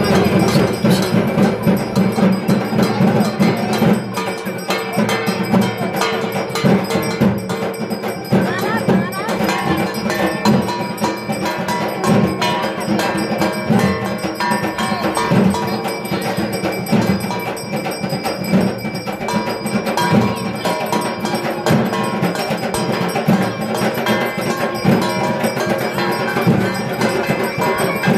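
Temple bells and a kansar gong struck continuously during puja, ringing over the hubbub of a crowd.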